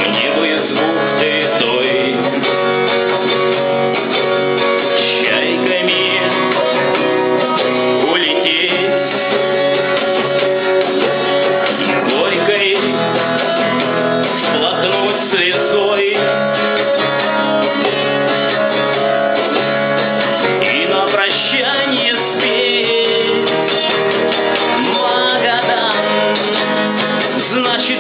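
Music led by a strummed acoustic guitar, steady throughout.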